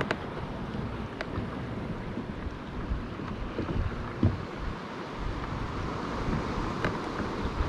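Wind rumbling on the microphone over water lapping at a sea kayak, with a few light clicks, one about a second in and one near the end.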